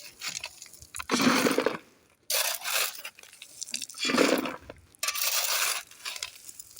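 Shovel scraping and scooping into sand or gravel, about one stroke every second and a half, each a gritty crunch with short pauses between.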